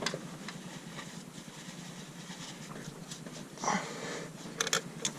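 A dog panting, with a couple of sharp clicks near the end.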